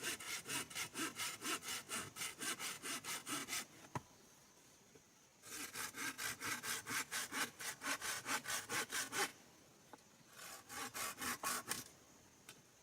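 Hand saw cutting through wood in quick back-and-forth strokes, about four or five a second. The sawing comes in three bouts with short pauses between, the last one brief.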